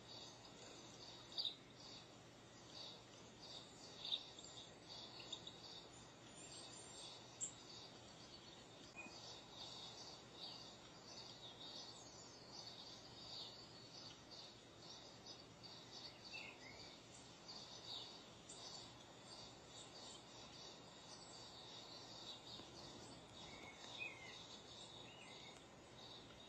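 Faint outdoor nature ambience: many short high chirps over a steady hiss, with a few sharper clicks about a second and a half, four and seven and a half seconds in.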